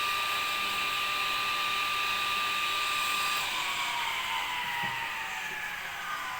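Electric circular saw mounted under a homemade table-saw top, running at steady speed with a high whine, then switched off about three and a half seconds in and spinning down, its pitch falling steadily.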